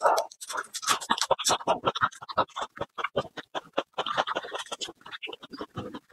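Papery garlic skins crackling and rustling in quick, irregular bursts as raw garlic cloves are peeled by hand close to the microphone.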